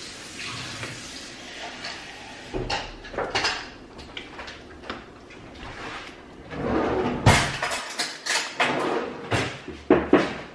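A spatula stirring and scooping strawberries and cream in a mixing bowl, with wet scraping and repeated knocks of the utensil against the bowl, louder and more frequent in the second half.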